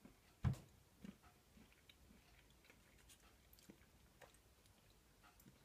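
A piece of white chocolate with blueberry granules snapping once about half a second in, then faint crunchy clicks of it being chewed.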